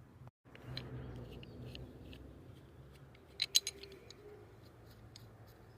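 Light clicks and taps from an antique tool being handled and worked, with a quick cluster of sharper clicks about three and a half seconds in, over a faint low hum.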